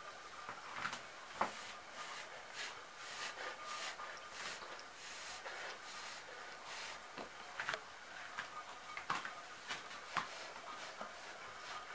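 Cat grooming itself: soft, irregular licking clicks and rubbing of fur.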